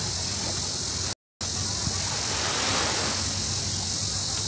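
Steady rushing outdoor noise of wind on the microphone and sea at the shore, with a brief cut to silence about a second in.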